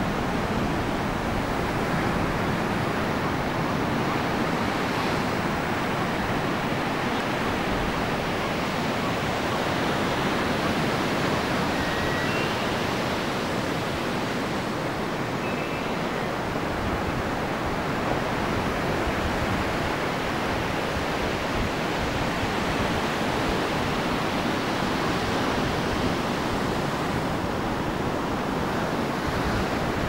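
Steady, even wash of ocean surf. A couple of faint, short high tones sound around the middle.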